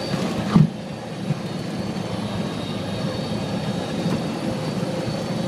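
Light single-engine propeller airplane's engine droning steadily at low power, heard from inside the cockpit during the landing, with a sharp thump about half a second in and a lighter knock about a second later.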